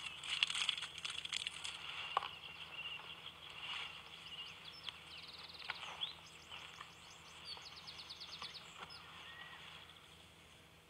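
Several small birds chirping and twittering, with short sweeping calls and two quick trills near the middle.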